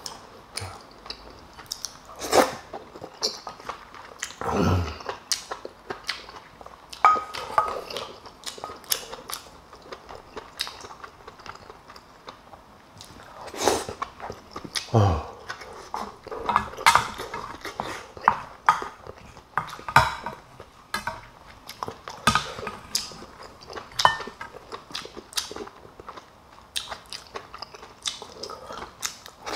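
Close-miked eating: chewing and biting food, with frequent sharp clicks of chopsticks and a spoon against bowls and dishes.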